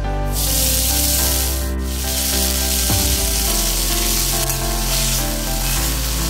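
Fresh fenugreek leaves sizzling in hot oil in a steel kadhai, starting about a third of a second in, with the scrape of a spatula stirring them. Background music with held notes plays underneath.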